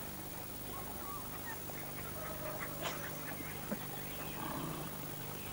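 Cocker spaniel puppies whimpering faintly, a scatter of short, thin squeaks over a steady low hum.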